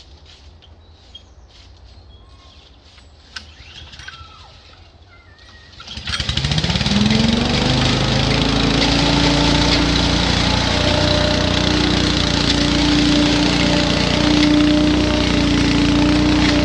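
Small engine of a garden leaf vacuum starting about six seconds in, its pitch climbing quickly before it settles into steady running. Before it starts there are only a few light clicks and faint bird chirps.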